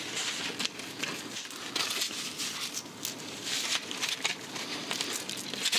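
A large machete-style knife being drawn slowly out of its sheath: continuous scraping and rustling with many small clicks.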